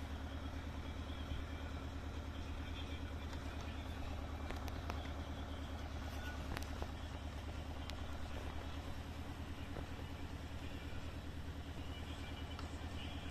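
An engine idling steadily with an even low hum, heard from inside a car, with a few faint ticks scattered through.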